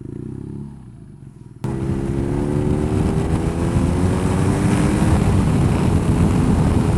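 Motorcycle engine running at low revs, muffled. About a second and a half in, it cuts abruptly to the bike accelerating along the road, its engine pitch rising slowly over a loud rush of wind noise.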